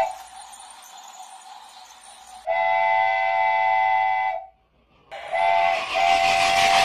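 Multi-tone train horn. It gives one long blast about two and a half seconds in, which cuts off abruptly, then a short blast and a longer one near the end over a rising rattle of a running train.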